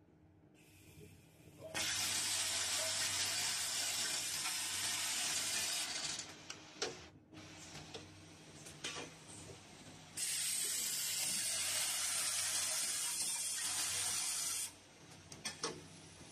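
Automatic packing machine with vibratory bowl feeders running: a steady low hum, broken twice by long spells of loud hissing rush of about four seconds each, with scattered sharp clicks of the mechanism in between.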